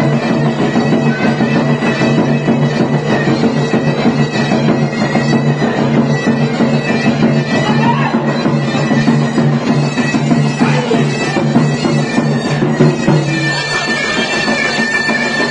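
Davul and zurna playing dance music: the shrill double-reed zurna carries the melody over the beat of the big two-headed davul drum.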